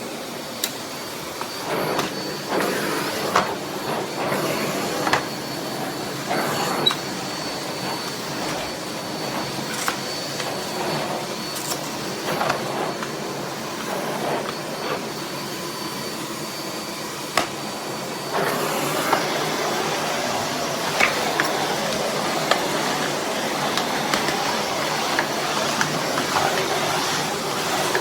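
Miele Blizzard CX1 bagless canister vacuum cleaner running steadily with a thin high whine, its nozzle knocking now and then as it is pushed about. It gets louder about two-thirds of the way through.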